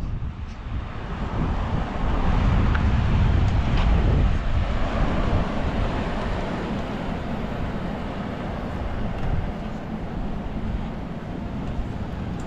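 Jet noise from the Airbus A330 MRTT's two Rolls-Royce Trent 700 turbofans as the aircraft flies its display: a deep, steady rush, loudest about two to five seconds in and then easing slightly.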